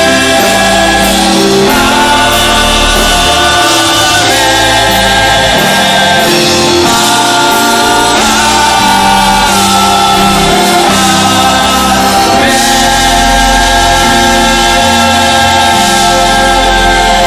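Church choir singing gospel music in full chords, loud and steady, over low held bass notes that shift every second or two.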